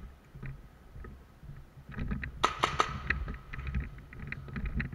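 Footsteps and gear rattling as a player moves, with a quick burst of four sharp cracks about halfway through, typical of an airsoft gun firing.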